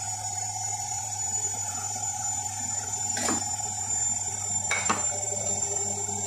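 Steady background hum with two short knocks, about three and five seconds in, of a knife against a plate as sliced red onion is moved from the cutting board onto the plate.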